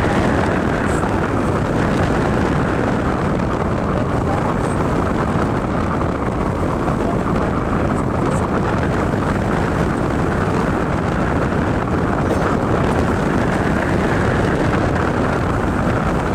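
Steady rush of wind buffeting a phone's microphone on a moving motorcycle, mixed with road and engine noise.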